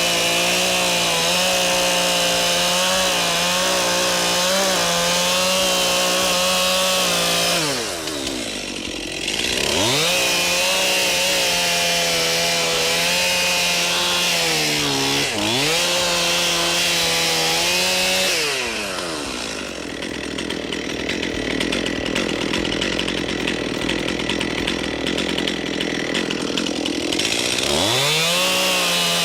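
Two-stroke chainsaw running at full throttle while cutting into a large tree trunk. The throttle drops off and revs back up about eight seconds in and briefly again around fifteen seconds. Near the end of the cut the engine note gives way to a rougher, noisier stretch before the saw revs up again.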